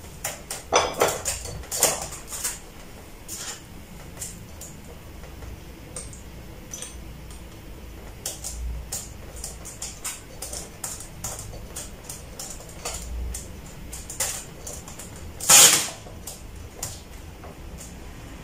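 Hard plastic clicks, taps and short scrapes as a monitor's plastic stand arm is handled and fitted against the back of the panel in a polystyrene foam tray, with one louder half-second scrape near the end.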